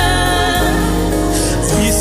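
Live gospel band playing sustained keyboard chords over a steady bass, with sung voices; the chord shifts about half a second in.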